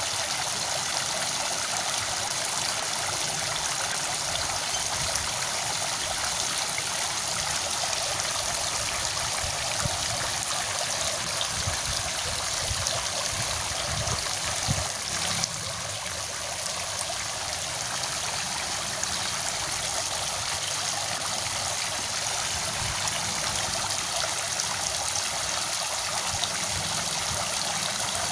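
Running water rushing steadily, with a few soft low bumps about halfway through.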